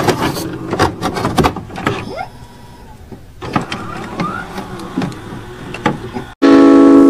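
Glitch-style sound effects for an animated loading screen: sharp clicks, scratchy static and short mechanical whirs, with a couple of brief rising sweeps. They cut off suddenly near the end, and loud synthesized music starts straight after.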